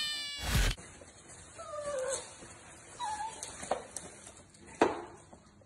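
A puppy whining in a few short, high calls that fall in pitch, at a closed door, wanting to be let out to relieve itself. A few sharp taps fall between the calls, the loudest near the end, and a short whoosh comes right at the start.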